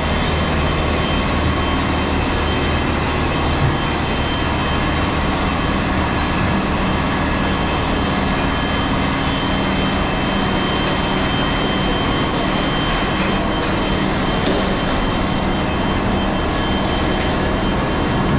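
Ice plant machinery running steadily: a loud continuous drone with a constant high whining tone over it, and a few faint clicks past the middle.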